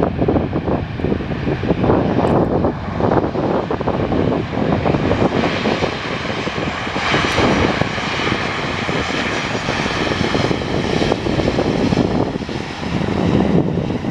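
Jet engines of a Boeing 737-700 (CFM56-7B turbofans) on arrival, a loud steady rumble with a higher-pitched roar building about halfway through.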